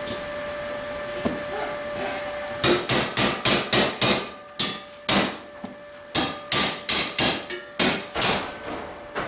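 A hammer striking the steel flange ring of a homemade railway wheel as it is fitted to the wheel disc. A faint steady hum comes first. A little over two seconds in, a quick run of blows starts at about five a second, then slower, spaced blows follow, each ringing briefly.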